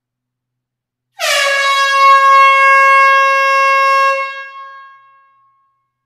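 A loud horn sounding one long blast of about three seconds on a single steady note, settling onto its pitch as it starts and fading out over about a second at the end.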